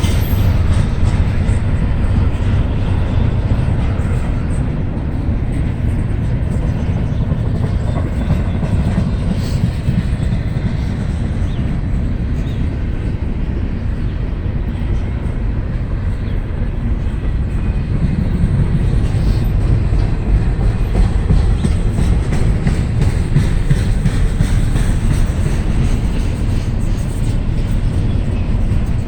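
Norfolk Southern intermodal freight cars rolling past at speed: a steady rumble of steel wheels on rail with irregular clicking and clacking over the track.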